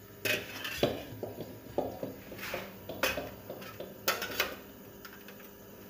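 A metal spoon knocking and scraping against a steel karahi: a series of irregular clinks, some followed by a brief metallic ring.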